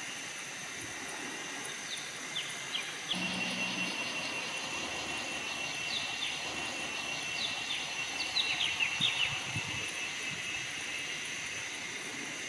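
Forest ambience: a steady, high insect drone, with a second buzzing insect joining about three seconds in. A bird gives short falling chirps through the middle, most of them in a quick cluster about eight to nine seconds in.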